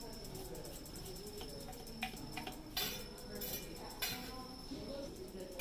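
A few sharp clinks and knocks, the loudest about halfway through, over a low murmur and a faint steady high-pitched whine.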